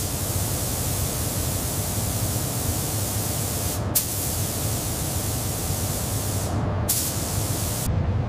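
Robotic paint spray gun hissing steadily over a low, even rumble. The high hiss cuts out briefly about halfway through, again a little after, and once more near the end.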